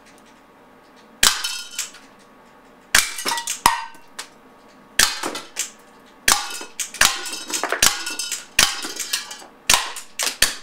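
About nine shots from a Walther Nighthawk CO2 pellet pistol, fired at irregular intervals, each followed by the clink and clatter of tin cans being hit and knocked over.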